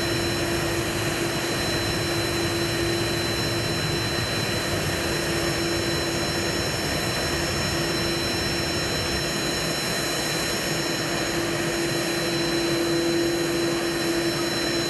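Jet aircraft engine noise running steadily: a constant rushing sound carrying a low hum and a high, thin whistle.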